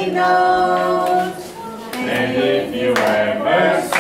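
Music with several voices singing long held notes together in chorus, the pitch shifting every second or so.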